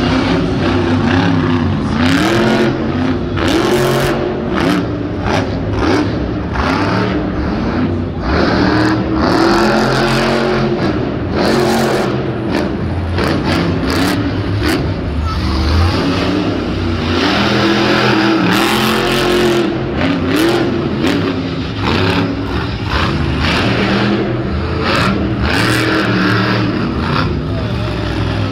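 Monster truck's supercharged V8 engine revving hard, its pitch climbing and falling again and again as the throttle is worked, with many sharp bangs and clatters from the truck hitting the dirt.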